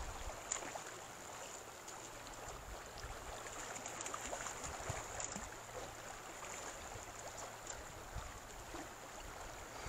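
River water running, faint and steady, with a few small ticks.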